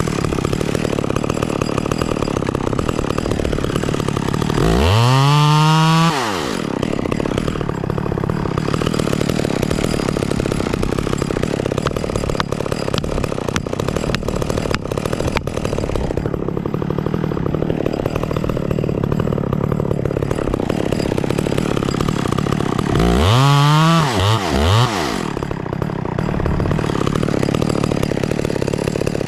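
Echo 670 two-stroke chainsaw idling, its throttle blipped up to full revs and back about five seconds in, and twice more in quick succession near the end.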